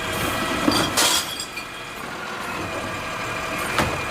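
Plastic toy trucks being handled, with a sharp clack about a second in and another near the end, over a steady hum.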